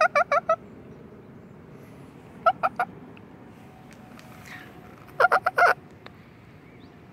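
Animal calls: three quick bursts of short, pitched staccato notes, about five, then three, then six notes, with the last burst the loudest.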